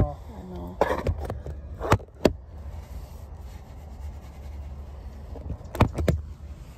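Handling noise from a phone camera being picked up and moved about: rubbing and a series of sharp knocks against the microphone, with two quick knocks near the end, over a steady low rumble.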